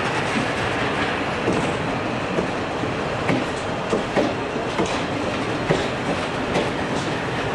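Vintage passenger coaches rolling past a platform, a steady rumble of the wheels on the track with irregular sharp clicks about every half second to a second.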